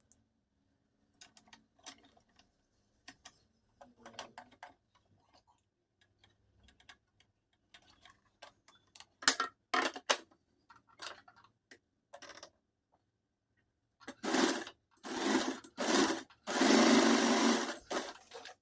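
Usha Allure electric sewing machine stitching in short runs, the last and longest lasting about two seconds near the end. Before that there are scattered light clicks and taps of handling.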